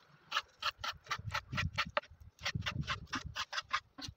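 Chef's knife dicing raw chicken fillet on a bamboo cutting board: quick, even taps of the blade on the board, about five a second, with a brief pause midway.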